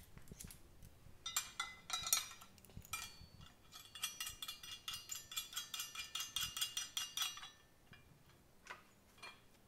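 Small steel hardware clinking and rattling in the hands: a hook being fitted onto a quick link. There are a few separate clicks at first, then a dense run of light metallic clinks with a ringing edge from about three to seven and a half seconds in, and a couple of faint clicks near the end.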